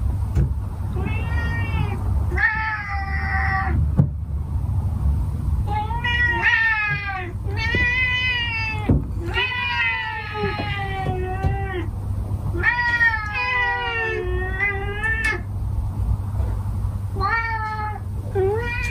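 Domestic cats meowing over and over, about nine long, wavering meows from more than one cat, some coming back to back, over a steady low hum. They are hungry cats calling for their breakfast.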